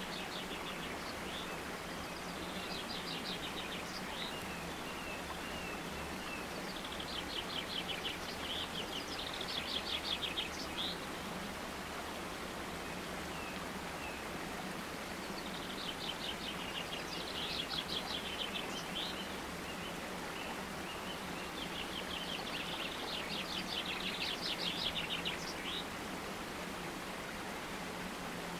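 Birds singing over a steady rushing noise like running water or rain. The birdsong comes in several bouts of rapid trilled chirps, each lasting a few seconds, with pauses between them.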